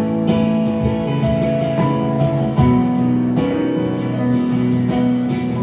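Instrumental music with strummed guitar and sustained chords that change every second or so, with no singing.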